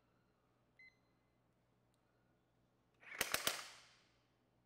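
Ingersoll Rand W9691 1-inch cordless impact wrench in its lowest power-control mode (mode 1, aimed at 180 ft-lb), snugging a nut with a brief run of a few sharp hammer blows about three seconds in. Before it, near silence with a faint short beep about a second in.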